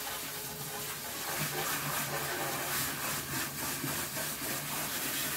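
Water spraying steadily from a kitchen sink sprayer hose, rinsing shampoo out of a wig's hair.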